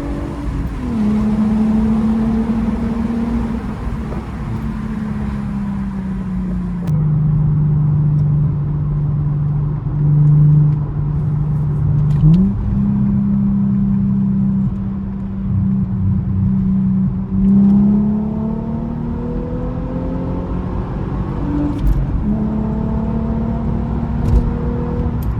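Mercedes C320's 3.2-litre V6 engine and modified exhaust running while the car is driven. The engine note holds steady for stretches and steps down and back up in pitch several times, with a few brief swells in loudness.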